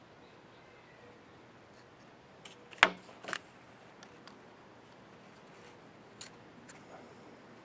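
Small tools and metal capacitor parts clicking and clinking as the opened high-voltage capacitor can is picked apart by hand to tear out its lining. A sharp click comes nearly three seconds in, another just after, then a few light scattered ticks.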